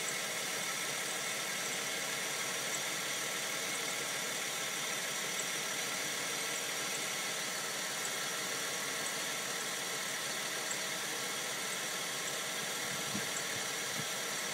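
A 2001 Dodge Intrepid's 2.7-litre V6 engine idling steadily, heard close up from the open engine bay.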